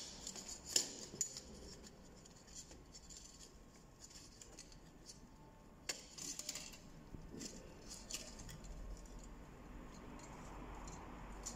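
Faint handling noise from an exit-sign light's circuit board being slid and pressed back into its housing channel: scattered light clicks and scrapes, a few about a second in and a cluster around six seconds in.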